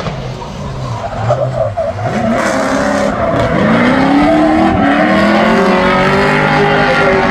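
Drift car's engine revving hard through a slide, its note dipping and climbing twice and then held high, over the hiss and squeal of rear tyres spinning in a cloud of smoke.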